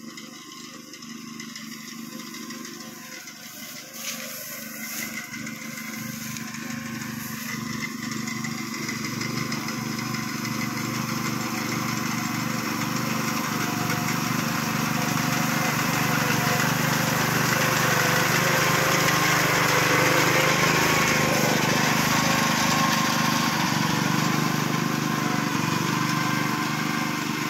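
Honda walk-behind paddy reaper's small engine running steadily while it cuts rice stalks. It grows louder as the machine approaches, is loudest about two-thirds of the way through as it passes, then eases slightly.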